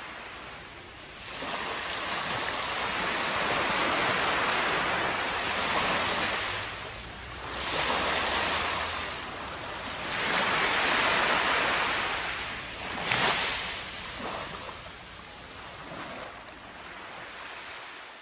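Shallow ocean surf washing up over sand: a rushing hiss that swells and falls back with each wave, several times, growing fainter near the end.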